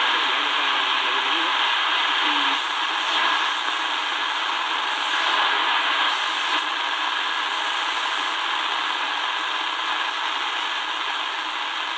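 Shortwave static hissing steadily from the Tecsun DR-920C's speaker as its analog tuning knob is turned slowly up through the 25-metre band around 12 MHz, with a few faint passing whistles as the dial sweeps between weak stations.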